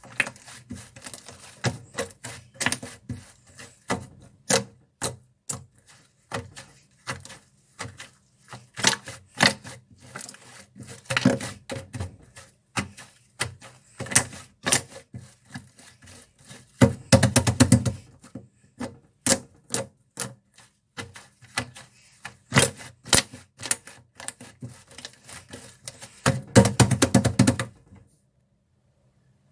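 Toffee slime being poked, pressed and stretched by hand, giving irregular sticky clicks and pops, with two bursts of rapid crackling, one midway and one near the end.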